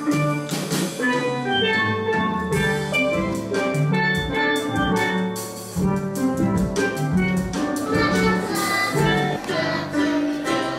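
A steel band playing: several steelpans sound melody and chords while a drum kit keeps the beat.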